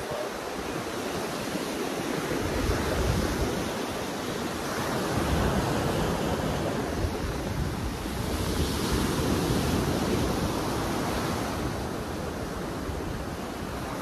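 Small waves breaking and washing up a sandy beach, swelling and easing every few seconds, with wind rumbling on the microphone.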